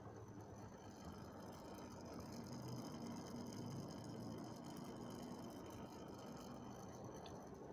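Faint steady hum and hiss of running aquarium equipment, with a few faint high steady whines above it and a small tick near the end.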